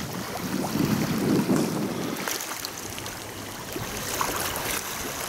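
Wind buffeting the microphone in gusts, with choppy floodwater lapping.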